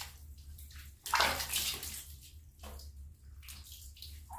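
Water splashing and dripping as hands wash a wet kitten over a plastic basin, in several short bursts, the loudest about a second in.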